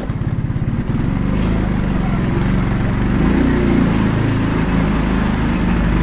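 Motorcycle engine running at low speed, with a quick pulsing beat in the first second, then steadier, its pitch wandering gently up and down.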